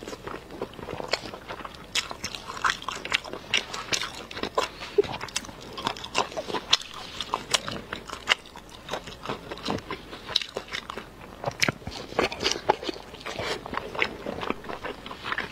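Close-miked chewing of soft braised meat: wet, irregular mouth clicks, lip smacks and biting sounds, several a second.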